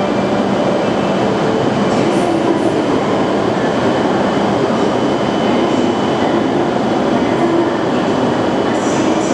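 E7/W7-series Hokuriku Shinkansen train moving at a station platform: a loud, steady rushing and rolling noise of the train, with a faint steady high tone and a few light clicks.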